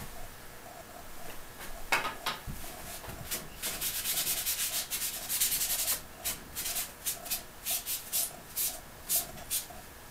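Paintbrush scrubbing thin oil paint across a painting panel: a few separate strokes, a couple of seconds of continuous scrubbing in the middle, then a run of short quick strokes, about two a second.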